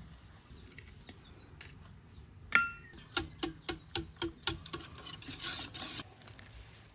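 A single sharp knock that makes an aluminium pot ring briefly, then a wire whisk beating eggs into flour and milk in the pot, the wires clicking against the metal about four times a second before running into a quicker, denser rattle of whisking.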